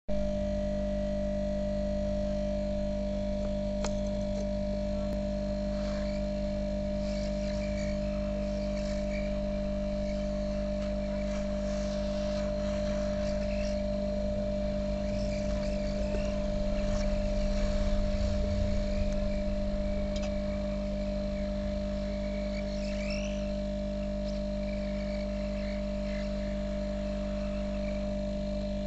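Hot-air rework gun's blower running with a steady hum as it heats the metal shield cover on a phone's circuit board to melt its solder for removal. It swells a little about two-thirds of the way through.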